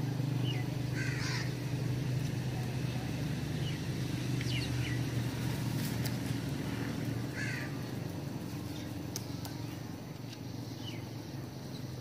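House crows cawing: three louder calls about a second, four and a half and seven and a half seconds in, with fainter calls between, over a steady low hum.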